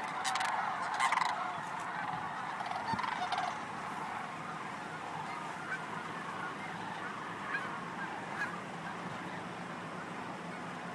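Massed calling of a large mixed flock of Canada geese and sandhill cranes: many overlapping honks and calls blend into a dense chorus, louder for the first few seconds, then softer, with single calls standing out.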